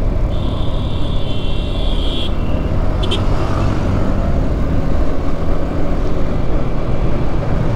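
Riding on a Yamaha R15M motorcycle: steady wind rush on the camera microphone over the rumble of the road and the running engine. A thin high buzz sounds for about two seconds near the start.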